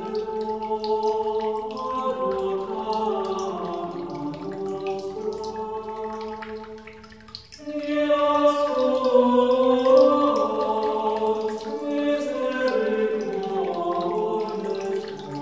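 Slow, chant-like vocal music of long held notes that shift in steps, dipping briefly about halfway and then swelling louder. Faint water dripping or trickling sounds beneath it.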